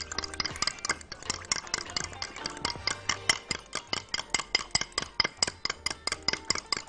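A fork beating egg wash in a glass measuring jug, its tines clicking against the glass in a quick, steady rhythm of about five strokes a second.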